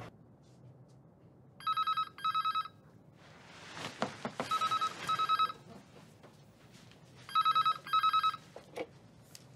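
Cordless landline phone ringing in a British-style double ring: three rings of two short electronic trills each, about three seconds apart.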